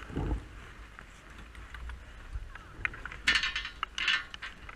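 Skis touching down and scraping across the packed snow of a chairlift's unloading ramp, in two rough bursts about three and four seconds in, after a dull thump near the start, with mechanical rattling of the lift.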